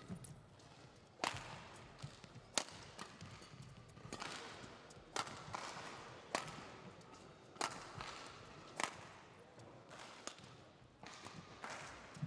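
Badminton rally: sharp smacks of rackets striking the shuttlecock about once every second, with players' shoes squeaking on the court mat between shots.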